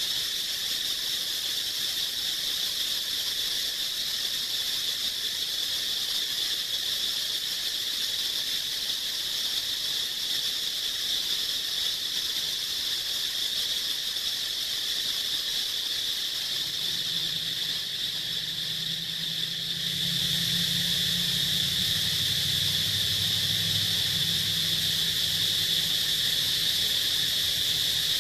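A chorus of insects droning steadily at one high pitch. Past the middle a low steady hum joins in underneath.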